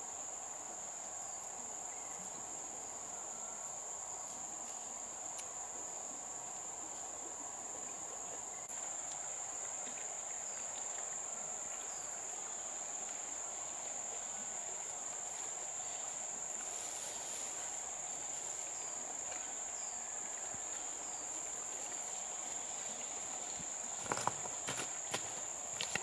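Crickets trilling in a steady, high-pitched chorus, with a lower steady drone beneath it. A few light knocks come near the end.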